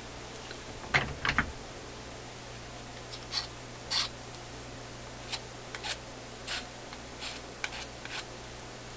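Soldering iron tip being filed: short, separate scraping strokes at irregular intervals, the loudest a double stroke about a second in, over a steady low hum. The tip is badly worn ('really shot').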